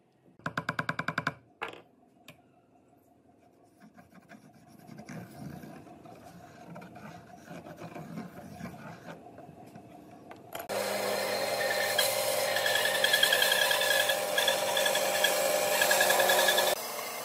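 A brief rapid fluttering burst near the start, then faint scratching of a pencil scribing a circle on a pine disc. About ten seconds in, a band saw starts running steadily with a whine, and it stops short just before the end.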